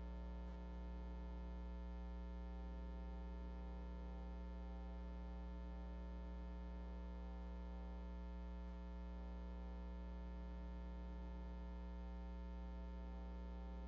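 Soft offertory music of sustained keyboard chords that change slowly every few seconds, over a steady low hum.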